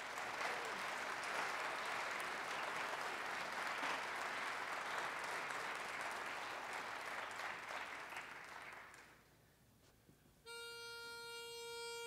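Audience applauding, fading out after about nine seconds. After a short pause, a single steady note is blown on a pitch pipe for about two seconds to give the barbershop quartet its starting pitch.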